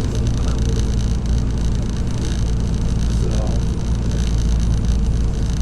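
Semi truck's diesel engine running steadily under way with road noise, heard from inside the cab, a constant low drone.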